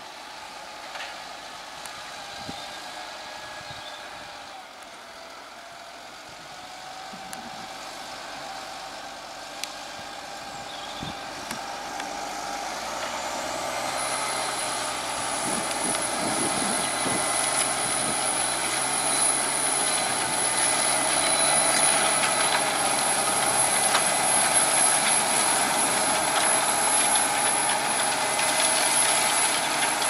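Fendt 936 Vario tractor's engine working under load as it pulls a six-furrow plough through the soil, growing steadily louder as it approaches. A thin, high steady whine joins about halfway through.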